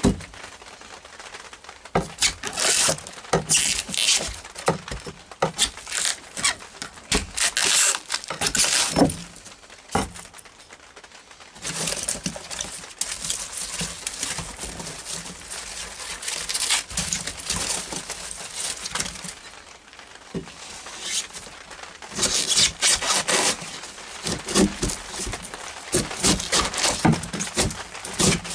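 Hand demolition in a fibreglass boat's floor: irregular scraping, tearing and cracking as old foam and wood are pried and scraped out, with longer stretches of steady scraping in the second half.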